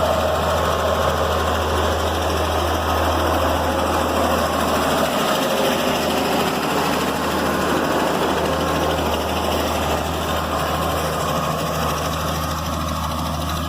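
Engine of road-works digging equipment running steadily while the old road surface is being dug up.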